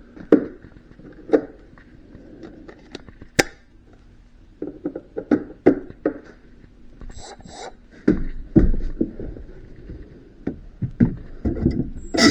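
Irregular knocks, clicks and short thuds of parts and tools being handled, with two brief hisses about seven seconds in.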